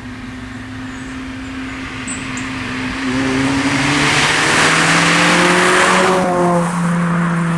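Car engine and exhaust under hard acceleration: the engine note climbs steadily in pitch and grows loud, peaking about five to six seconds in, then drops in pitch and settles to a steadier lower note near the end.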